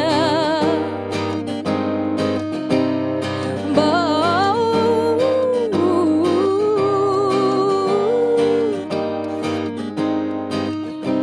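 A woman singing wordless, sliding vocal runs over a strummed acoustic guitar.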